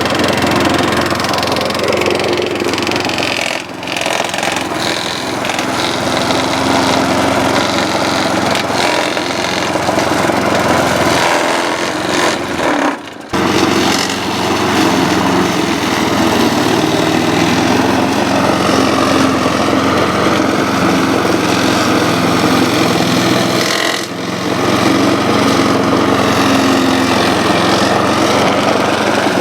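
Lawn mower engine running steadily under remote control, heard close up, with a brief break a little before halfway.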